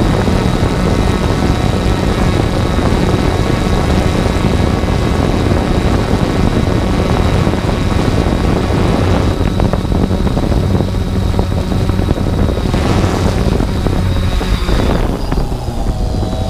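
3DR Solo quadcopter's motors and propellers running steadily as it descends to land, heard from its onboard camera as a loud drone with a few held tones. Near the end the sound thins out and changes as it sets down on the grass.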